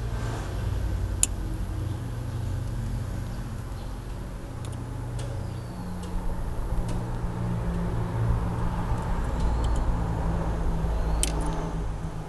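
A steady low mechanical hum runs throughout. Over it come a few small, sharp clicks as pins are worked out of a plastic wiring connector, the clearest about a second in and again near the end.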